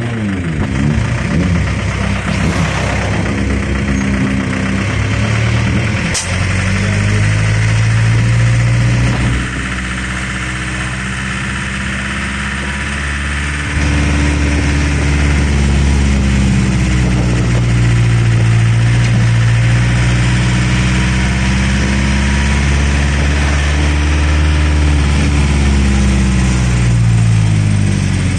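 Tourist road train's engine running as it tows its carriages along a street, heard from on board; its pitch rises and falls repeatedly as it speeds up and slows down. It drops quieter for a few seconds around the middle, then picks up again.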